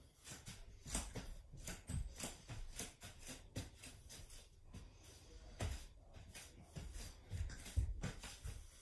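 Irregular rustling, taps and soft thumps of two people moving through a floor exercise on a foam mat, a few a second at uneven intervals.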